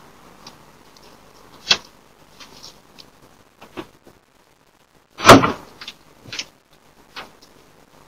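A car door being shut: a sharp click about two seconds in, then a loud heavy slam a little after five seconds, with a few small clicks and rattles between.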